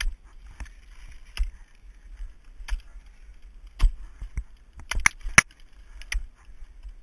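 Ice axe picks striking and biting into thin ice as the climber swings the tools: about nine sharp, irregular strikes, the loudest a cluster around five seconds in.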